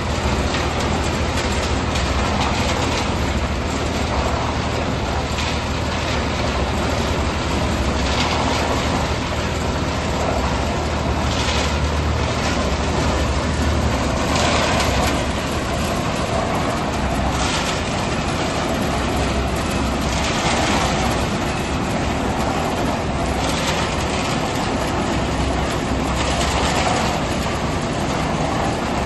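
Tractor-mounted self-loading concrete mixer running off the tractor's PTO: a steady low engine drone with irregular clattering and rattling from the machine every few seconds.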